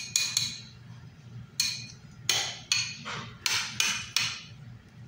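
Metal spoon clinking against a glass bowl as it stirs eggplant strips in beaten egg to coat them: about eight sharp clinks at irregular intervals, over a low steady hum.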